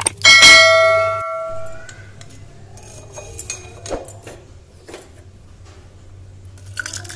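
A bright bell chime rings out once just after the start and dies away over about a second and a half: the ding sound effect of a subscribe-button animation. A couple of faint clicks follow later.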